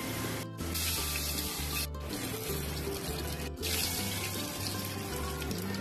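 Hot oil sizzling in a kadai, with a steady hiss that breaks off sharply at a few edits and gives way about three and a half seconds in to a lighter crackle as whole cumin seeds, dried red chillies and bay leaf fry in the oil and are stirred with a wooden spatula. A song with a steady bass line plays underneath.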